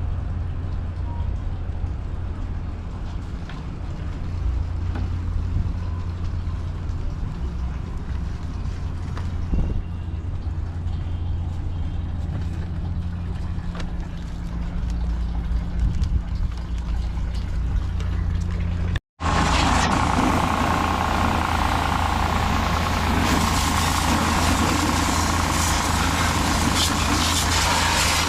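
Steady low motor hum. After a cut about 19 s in, a louder, steady hissing spray takes over: the pressure washer's jet washing the motorcycle.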